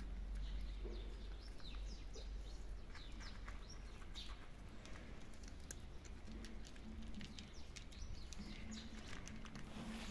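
Several cats crunching dry kibble, a scatter of short, irregular clicks and crunches, with a few bird chirps behind.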